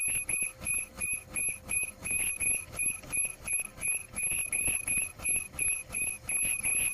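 Ultrasonic food cutter's vibrating blades giving a high-pitched whistle that pulses on and off about three times a second as it slices a swiss roll.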